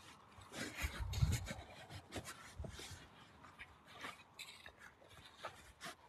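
Footsteps crunching and scuffing on patchy snow and ground litter, in irregular crackly strokes, with a dull low bump about a second in.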